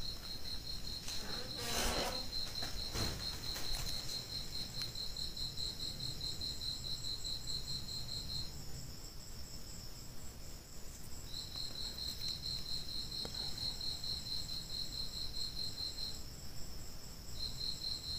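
Insects, most likely crickets, trilling in a fast, even pulse at a high pitch. The trill breaks off twice for a few seconds and then resumes. About two seconds in there is a brief rustle.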